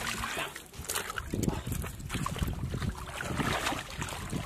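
Shallow muddy water splashing and sloshing in irregular bursts as hands grope and stir through it.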